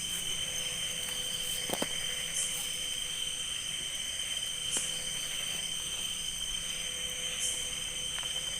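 Chorus of crickets and other insects trilling steadily at several high pitches, with a couple of faint sharp clicks or snaps about two and five seconds in.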